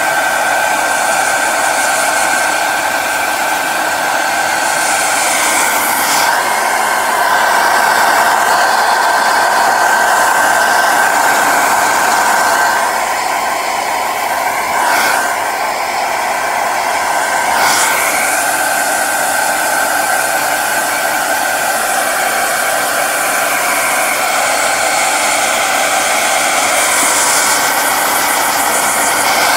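Handheld hair dryer blowing steadily: a constant rush of air with a thin, steady whine from its motor.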